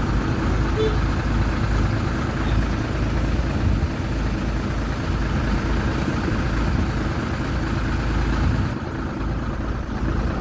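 Heavy diesel engine of the earthmoving machinery running steadily, easing off slightly near the end.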